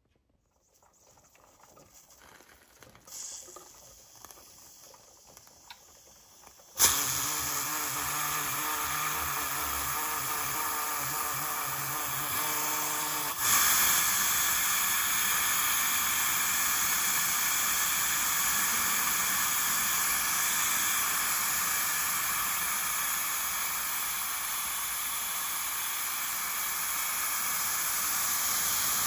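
Tefal pressure cooker venting steam through its lid valve to release pressure: a loud steady hiss that starts suddenly about seven seconds in, with a low tonal rattle under it at first, and grows louder about thirteen seconds in.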